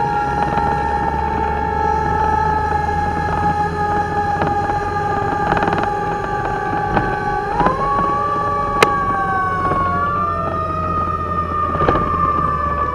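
Fire truck siren heard from inside the cab of a pumper on an emergency run: a steady wailing tone that slides slowly down, jumps up a little past halfway, then slowly rises and falls again. Under it is the truck's low engine rumble, with one sharp click about two-thirds through.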